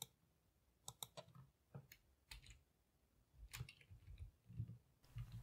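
Faint, irregular clicks of computer keyboard keys pressed one at a time, about a dozen over several seconds.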